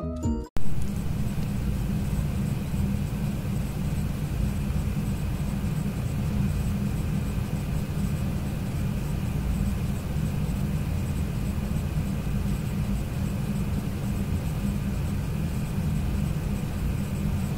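A brief thump just after the start, then a steady low rumble with a faint hiss above it, unchanging throughout.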